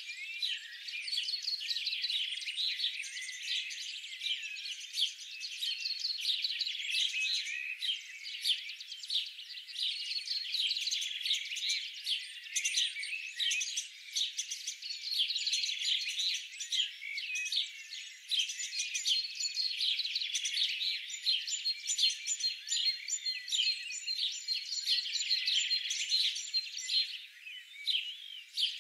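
A dense chorus of many small birds chirping and singing at once, quick high-pitched chirps and trills overlapping without a break. The sound is thin, with no low end at all.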